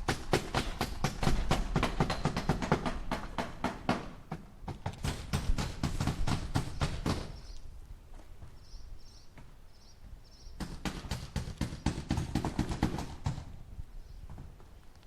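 Hammer driving nails into wood in three runs of rapid blows, each run lasting a few seconds, with a pause of about three seconds before the last. Faint short high chirps sound during that pause.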